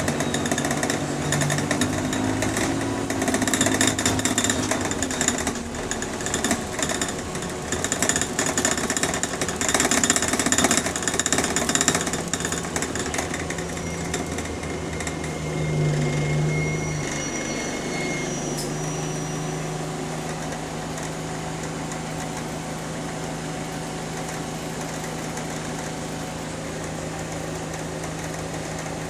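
Bus engine running with heavy rattling of the interior while under way. As the bus slows, there is a brief high-pitched squeal, then the engine settles to a steady idle for the last ten seconds or so.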